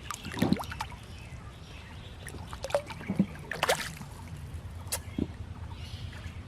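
Water splashing and sloshing over a steady low rumble, with scattered short clicks and knocks and a few brief splashes.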